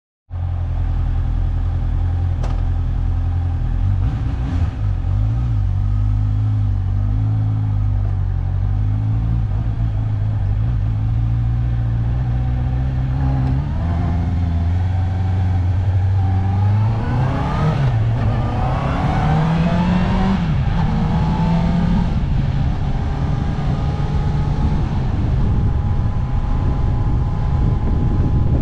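Motorcycle engine idling steadily, then revving up with a rising pitch about two-thirds of the way in as the bike pulls away, followed by the engine running under way with wind and road noise.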